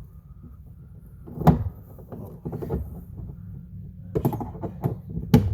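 A few sharp knocks and clunks of the footbrace and its hardware against the canoe hull as it is fitted, the loudest about a second and a half in and another near the end.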